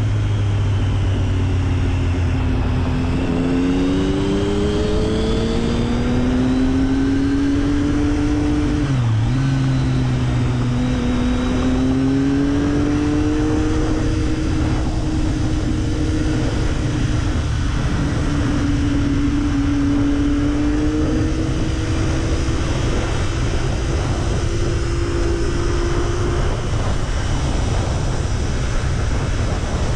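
Motorcycle engine running at highway speed over a steady rush of wind and road noise. Its pitch rises and falls slowly with the throttle, dips sharply about nine seconds in, then climbs back and holds fairly level.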